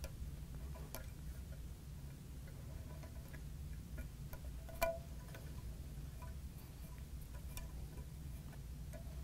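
Faint, scattered clicks and taps of a CAT6 shielded keystone jack being handled as its wire pairs are pushed down into the termination slots by hand. A sharper click about five seconds in rings briefly, over a low steady hum.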